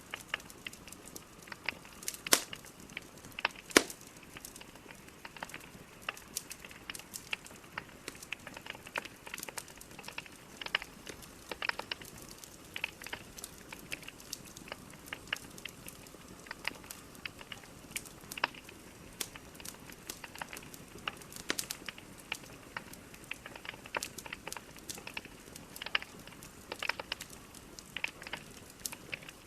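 Wood fire burning in a fireplace: logs crackling and popping in irregular sharp snaps over a soft steady hiss, with two louder pops a couple of seconds apart near the start.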